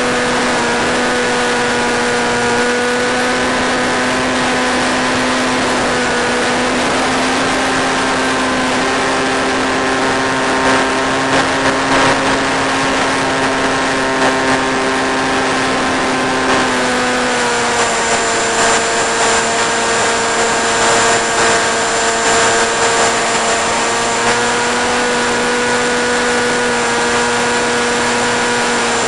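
Electric motor and propeller of a flying-wing RC plane running steadily in flight, a constant pitched drone that shifts pitch a few times as the throttle changes, over a strong steady hiss.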